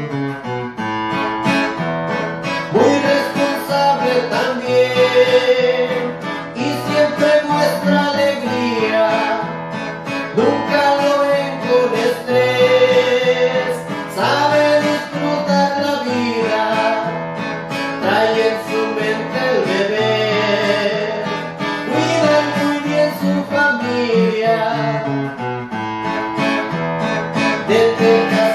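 A man singing a corrido in Spanish, accompanying himself on an acoustic guitar.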